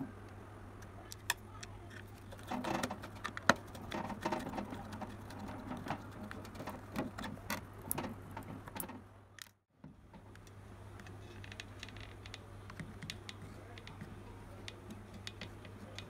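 Clicks, taps and rustling from hands handling a small portable speaker with a metal end cap, over a steady low hum. The handling is busiest in the first half, breaks off briefly near the middle, then goes on more quietly.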